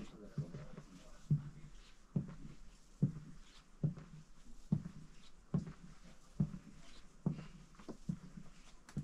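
Slow, even footsteps of a person walking along a train carriage aisle, about ten steps, a little more than one a second.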